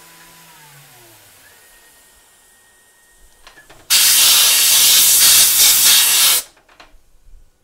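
Compressed-air blow gun blasting in one loud hiss of about two and a half seconds, clearing cutting chips off the freshly knurled part in the mill fixture. Before it, the Tormach 1100 CNC mill's spindle winds down, its hum falling in pitch.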